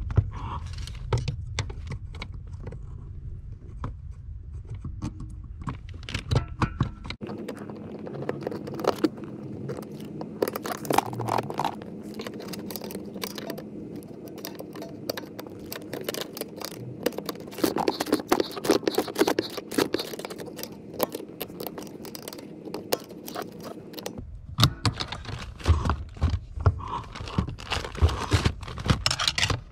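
Metal hand tools and car parts clinking and scraping during repair work, many short irregular clicks and knocks.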